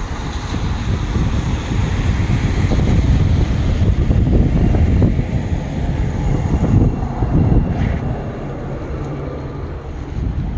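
Wind buffeting the microphone over the running of a hi-rail pickup truck moving away along the railroad track on its rail guide wheels. The rumble eases a little near the end.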